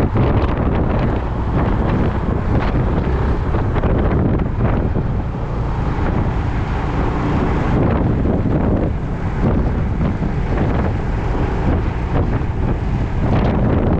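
Heavy wind buffeting the microphone during a ride on a Yamaha Majesty 400 scooter, with the scooter's engine running steadily underneath.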